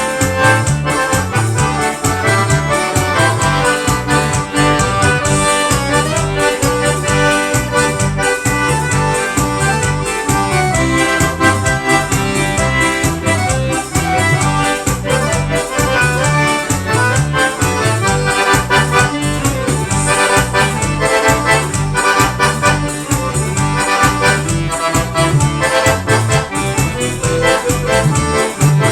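Accordion playing an instrumental forró, a slow rastapé, over a steady, repeating bass beat.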